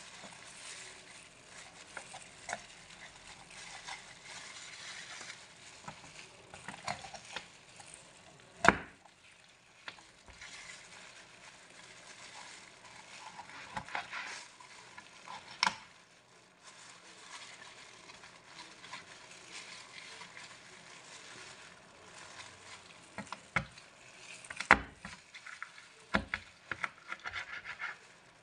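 A knife cutting up a whole raw chicken on a cutting board: soft slicing and handling noises, broken by a few sharp chops of the blade striking the board, the loudest about a third of the way in and a cluster near the end.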